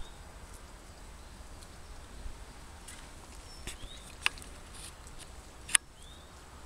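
Quiet outdoor background with a few short bird chirps and several sharp clicks. The loudest click comes about a second before the end.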